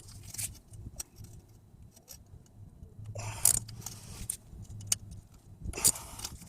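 Metal parts and tools clinking and scraping during hands-on work on a car's strut assembly: scattered light clicks, with louder scraping about three seconds in and again near the end, over a faint low hum.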